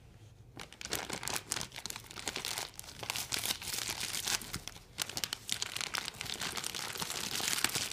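Plastic packaging crinkling as it is handled and pulled open by hand: a dense run of irregular crackles starting about half a second in.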